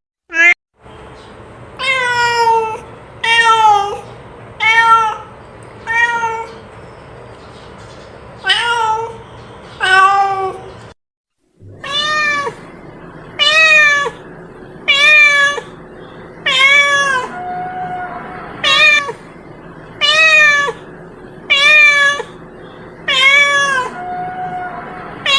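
A cat meowing over and over, about sixteen meows roughly one every second or so, each rising and then falling in pitch, with two brief cut-outs to silence, one near the start and one about halfway. It is a calling meow.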